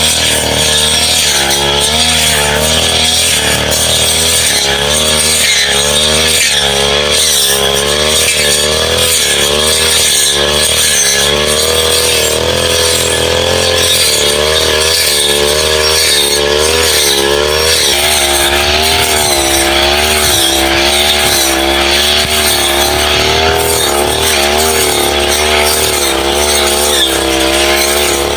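Two-stroke brush cutter engine running hard, its pitch wavering up and down over and over as the blade bites into woody growth and the engine recovers.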